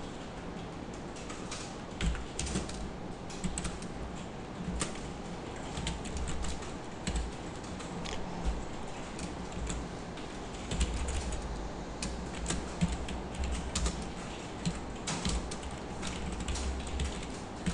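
Typing on a computer keyboard: irregular runs of key clicks with short pauses between them, over a low steady hum.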